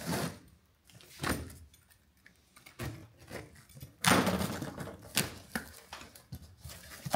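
Cardboard parts box being opened: packing tape cut and torn and the flaps pulled apart, heard as a few short tearing and scraping sounds with small knocks. The loudest tear comes about four seconds in.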